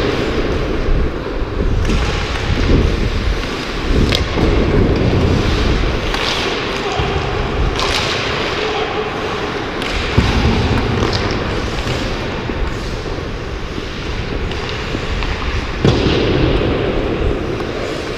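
Ice hockey skating heard from a camera worn by the skater: a steady rush and rumble of moving air on the microphone with skate blades on the ice, broken by a few sharp knocks of stick or puck.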